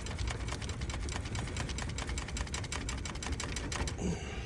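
Air-conditioner condensing unit with its contactor energised by the 24-volt signal: a steady low hum under a rapid, even ticking of about ten clicks a second, which stops about four seconds in.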